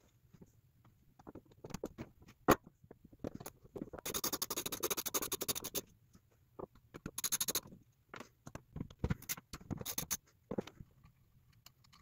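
Ratchet wrench clicking in two quick runs, about four seconds in and again about seven seconds in, between scattered clinks and knocks of tools and metal parts, the sharpest about two and a half seconds in, as the throttle body is unbolted from an intake manifold.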